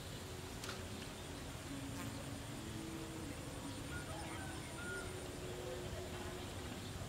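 A flying insect buzzing, its pitch wavering as it comes and goes, over a thin steady high insect drone, with a couple of faint ticks.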